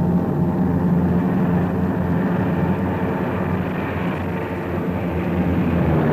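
Piston engines of a propeller aircraft running steadily, a low drone with a slight dip in level about four seconds in.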